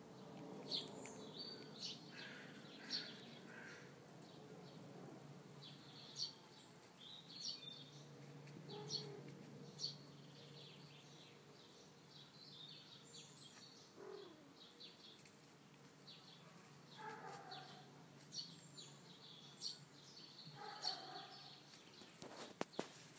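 Faint outdoor ambience with small birds chirping on and off, short high calls scattered throughout.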